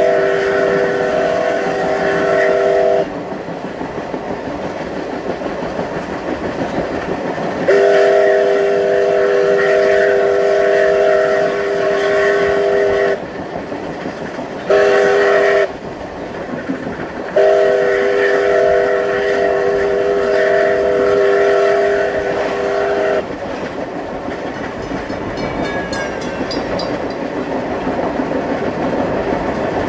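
Canadian Pacific G5a 4-6-2 No. 1201's steam chime whistle blowing four blasts, long, long, short, long: the road-crossing signal. Beneath it the moving train rumbles and clatters steadily. The first long blast is already sounding at the start, and the last ends about three-quarters through.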